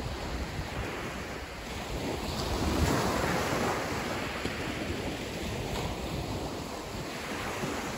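Small waves breaking and washing up the beach, with wind on the microphone. The surf swells about three seconds in, then eases.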